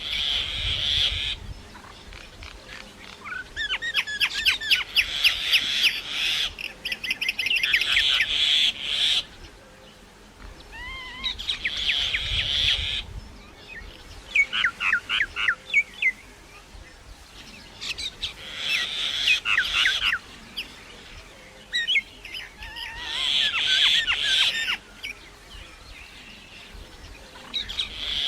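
Common myna singing in repeated bouts of rapid clicking rattles, short gliding whistles and harsh hissing notes, with short pauses of a second or two between bouts.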